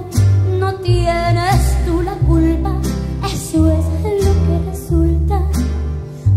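Live ranchera band music between sung lines, carried by a strong bass line of repeated low notes under brighter instruments.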